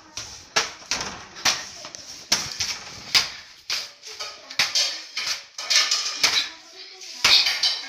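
A child's boxing gloves hitting a small hanging punching bag: about a dozen sharp smacks at an uneven pace, roughly one or two a second.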